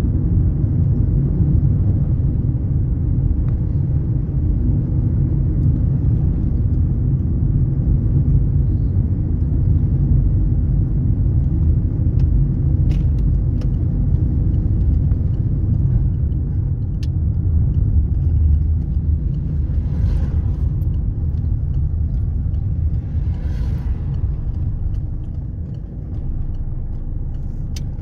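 Steady low rumble of engine and road noise inside a moving car's cabin, with two brief swells of hiss about two-thirds of the way through.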